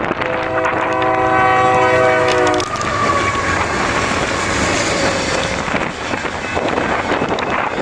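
Locomotive air horn sounding one multi-note blast of about two and a half seconds. It is followed by the steady rush and rumble of a fast intermodal train passing, with the wheels clicking over the rail joints.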